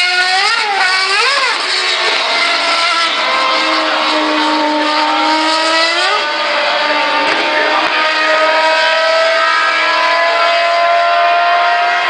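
Open-wheel race cars' V8 engines running hard through fast bends, several cars overlapping. Twice in the first second or two the pitch dips and rises quickly as a car lifts off and gets back on the throttle, and again near the middle; then the engine notes climb steadily as the cars accelerate away.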